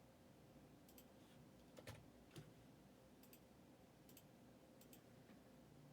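Near silence with a few faint, short clicks scattered through it.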